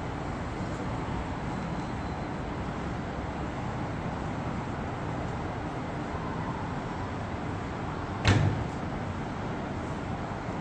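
Steady hum of city traffic, with one sharp knock about eight seconds in.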